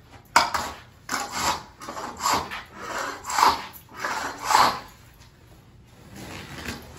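Long-handled floor scraper shoved across a tiled floor in repeated rasping strokes, about one a second, as it lifts carpet padding. The strokes stop about five seconds in.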